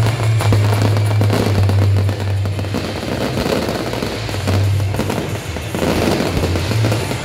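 Fireworks display: a rapid run of aerial shell bursts and crackling, with music playing underneath.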